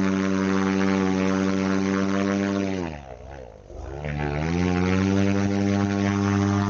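Paramotor trike's engine and propeller running at high throttle during the takeoff roll, a steady drone. About three seconds in the revs fall away, then climb back to full power over the next second and a half.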